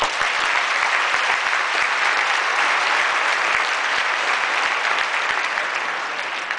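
Large audience applauding, many hands clapping at once. It breaks out suddenly and begins to die down near the end.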